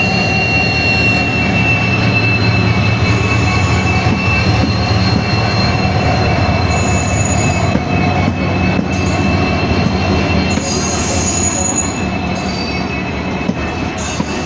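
Passenger train running along the track, with a steady low rumble and high, steady wheel squeal over it. A few sharp clicks come in the second half.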